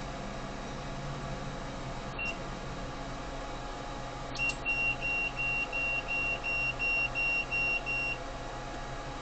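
Electronic beeper sounding one short high beep, then a rapid run of about a dozen evenly spaced beeps of the same pitch, over a steady hum.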